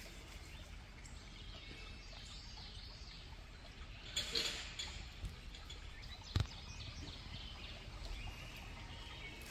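Faint birds chirping over a low steady outdoor rumble, with a short rustle about four seconds in and a single sharp click a couple of seconds later as a small lidded container is handled.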